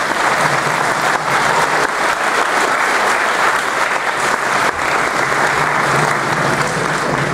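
Audience applauding steadily: dense, sustained clapping from a crowd.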